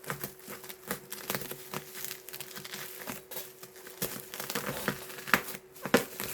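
Packaging being unwrapped by hand, crinkling and rustling in a dense run of small irregular crackles, with a couple of sharper clicks near the end.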